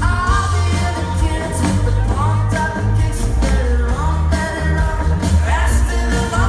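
Live band playing loud amplified pop-rock with a singer's voice over a steady heavy bass and drum beat, heard from within the crowd at an outdoor concert.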